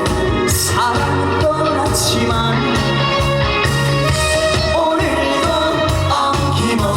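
Live performance of a Korean trot song: a male voice singing with sliding notes over a full band backing with a steady bass line.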